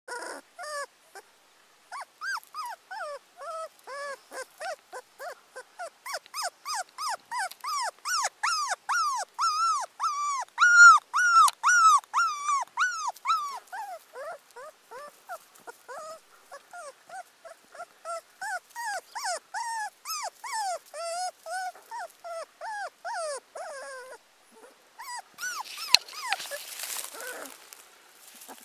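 Young puppy crying over and over: short, high-pitched whimpering cries, each rising and falling in pitch, two or three a second with brief pauses between runs. Near the end a rustling noise takes over.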